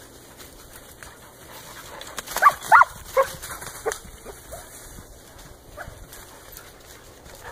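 A dog giving a quick burst of high yelping barks about two seconds in, then a few fainter yips, during rough play.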